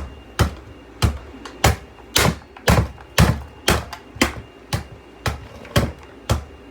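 Hammer blows on the front end of a vacuum cleaner, a steady run of sharp knocks about two a second.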